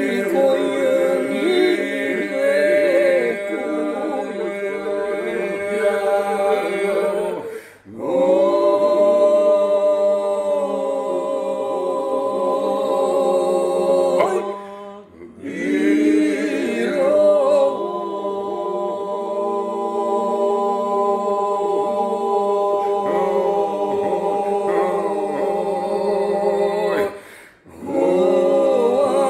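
Unaccompanied Albanian polyphonic song in the Vlora style: a lead voice and answering voices over a steady held drone. It is sung in long phrases with short breaks about 8, 15 and 27 seconds in.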